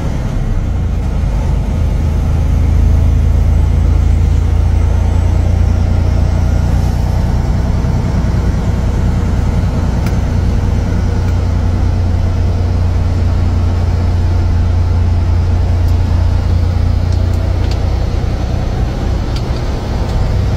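Steady low engine and road drone heard inside the cab of a moving truck at highway speed, with a few faint ticks in the second half.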